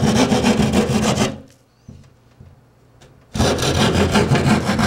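Hand drywall saw cutting through gypsum drywall with quick back-and-forth strokes. There is a run of sawing for about the first second, a pause of about two seconds, then sawing again to the end.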